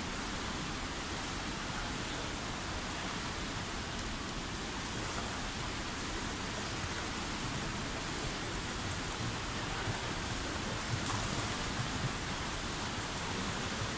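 Indoor swimming pool hall ambience: a steady wash of splashing from swimmers doing lengths, echoing in the hall, with a few sharper splashes in the second half.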